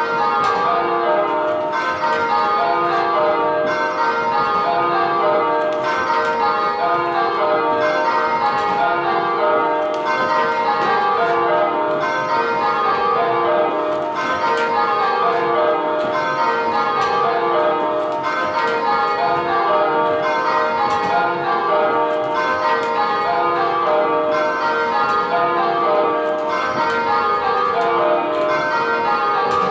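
Church tower bells rung full-circle in change ringing, each bell striking in turn in steady, repeating descending runs. Pairs of bells swap places at handstroke on call (kaleidoscope or dynamic-pairs ringing) while the rest hold their places.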